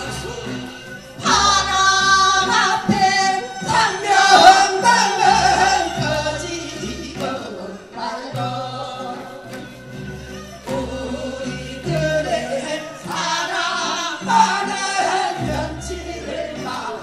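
Voices singing through stage microphones over instrumental accompaniment with a moving bass line. The singing swells loudly about a second in and again a little past the middle.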